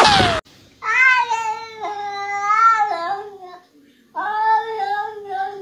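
A domestic cat yowling: two long, wavering, drawn-out meows with a short pause between them. A brief falling swoosh comes at the very start.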